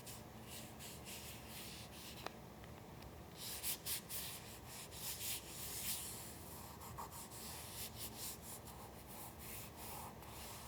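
Paper being handled and rubbed by hand: a run of soft, rustling strokes, busiest about four to six seconds in, with one small click a little after two seconds.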